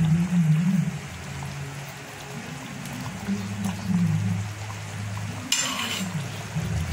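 A ladle stirring and sloshing a thick braised-meat stew in an aluminium pot, with a brief scrape near the end, under a low wavering hum.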